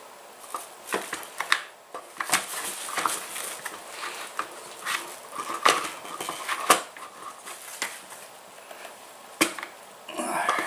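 Irregular sharp clicks, knocks and scrapes of hard plastic as the recoil starter housing of a Ryobi BP42 backpack leaf blower is handled and fitted back onto the engine.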